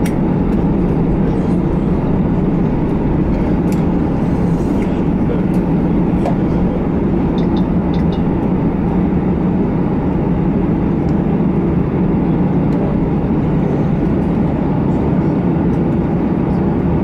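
Airbus A320 passenger-cabin noise while taxiing: a steady low rumble of the running jet engines and the rolling airliner, with a few faint clicks.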